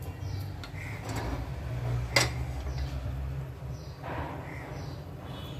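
Olive oil being poured from a bottle into a pressure-cooker pan on a lit gas burner: a low steady rumble with faint handling noises, and one sharp knock about two seconds in.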